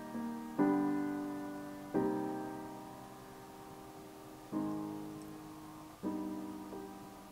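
Background piano music: slow chords struck about every one and a half seconds, each ringing and dying away.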